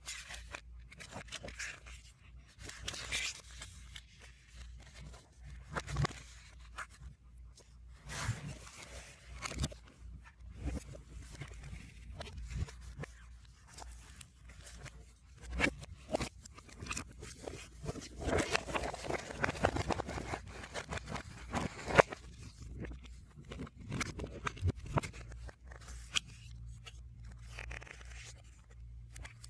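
Album packaging being handled and unwrapped, played backwards: an uneven run of rustles, scrapes, crinkles and clicks, with a denser stretch of crinkling about two-thirds through that ends in a sharp snap.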